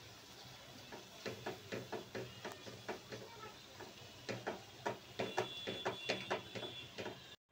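A spatula stirring spice powder into onion masala in a nonstick frying pan: a run of short scrapes and taps against the pan, quicker and louder about four seconds in, over a low steady hum. It cuts off suddenly near the end.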